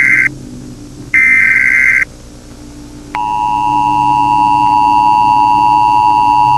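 Emergency Alert System tones: two loud, warbling data bursts of the SAME header about a second apart, then about three seconds in the steady two-tone EAS attention signal starts and holds, over a low steady hum.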